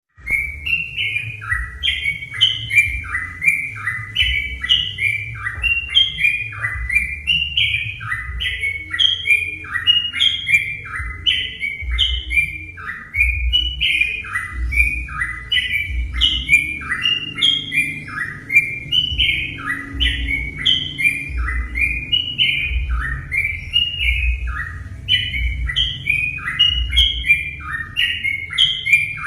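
Yellow-vented bulbul (trucukan) singing on and on in quick, repeated chattering phrases, over a low rumble.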